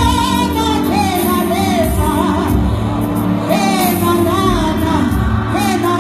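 Youth gospel choir singing a Zulu-language song together with instrumental backing, with held low notes underneath and a steady beat.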